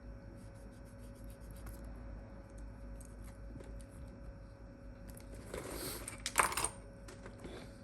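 Small metal tools handled on a workbench: faint ticks and taps, then a short rustle and a sharp metallic clink about six seconds in.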